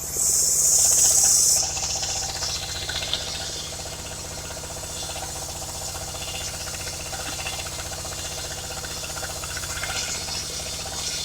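Engine of a portable circular-saw sawmill running steadily. A loud hiss opens and cuts off after about a second and a half, followed by lighter rattling and hissing over the engine.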